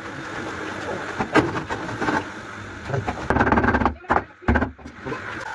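People talking, with a few sharp knocks and a short scraping noise about three and a half seconds in as a stone countertop slab is handled and set onto its base.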